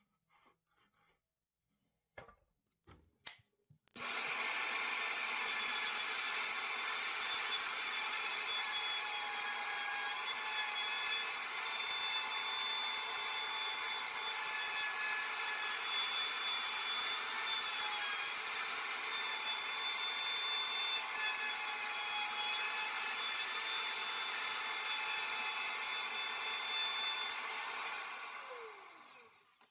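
An electric power tool working wood, after a few light knocks. It starts suddenly about four seconds in, runs steadily, then is switched off near the end and winds down with a falling whine.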